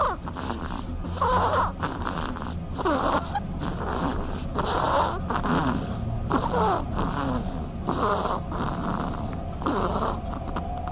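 Sleeping ducklings snoring: a rhythmic breathy rasp about every second and a half to two seconds, with thin gliding peeps inside each breath.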